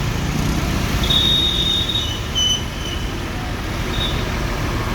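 Road traffic running steadily, with thin high-pitched squeals about a second in and again around two and a half seconds in.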